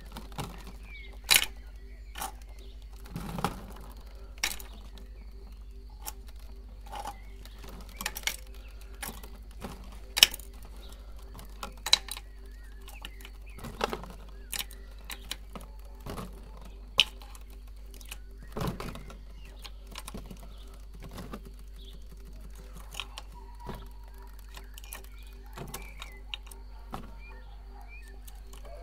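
Irregular clicks, taps and crinkles from a clear plastic tray being handled while lollipops are picked out of it and slid into a motorcycle exhaust tip, a sharp click every second or two.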